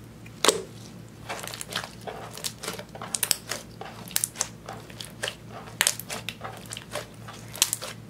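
Clear slime mixed with eyeshadow being folded and pressed by hand, making a run of sharp, sticky clicks and pops. The first pop, about half a second in, is the loudest.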